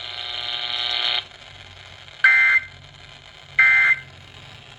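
Emergency Alert System end-of-message data bursts, played back off a radio receiver: two short, identical, harsh buzzing bursts about a second and a half apart, marking the end of the alert broadcast. Before them, a steady buzzing tone stops about a second in.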